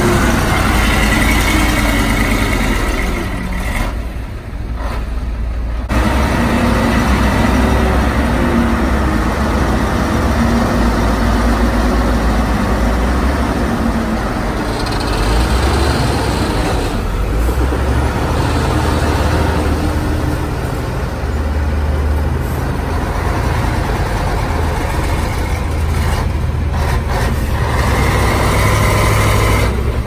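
Heavy diesel engines of a Hyundai dump truck and a LiuGong crawler bulldozer running hard under load as the dozer pushes the mud-stuck truck, with a steady low rumble that eases off briefly about four seconds in.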